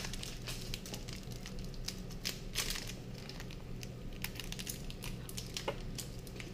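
Foil wrapper of a Pokémon card booster pack crinkling and tearing as it is opened by hand, in short irregular crackles over a faint steady low hum.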